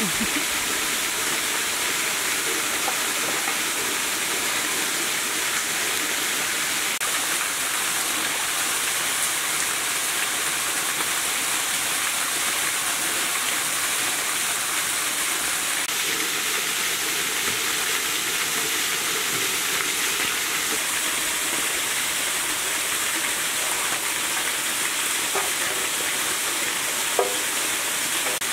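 Waterfall's steady rush of falling water, a constant even hiss with no let-up.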